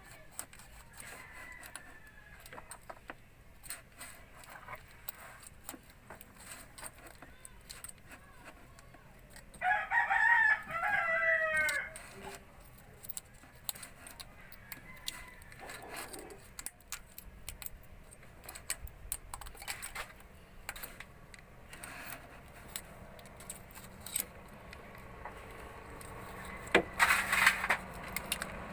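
A rooster crows once, about ten seconds in, the loudest sound. Light, scattered metallic clicks and taps of hand tools are heard throughout.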